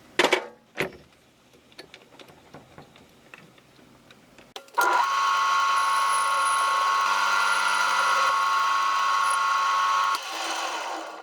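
Lathe switched on about five seconds in and running steadily with a whine for about five seconds while a screwdriver bit adapter is trued up on it, then switched off and winding down. Two sharp clicks come right at the start.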